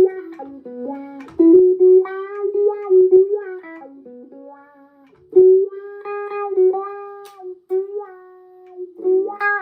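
Electric guitar played through a wah-wah pedal into a Marshall MG15DFX amp's clean channel: a run of single notes with a few bends, the tone sweeping as the pedal rocks. The wah is nice and responsive.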